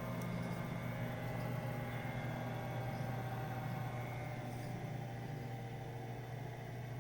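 Weil-McLain boiler running with a steady vibrating noise: a constant low hum with several fainter steady tones above it.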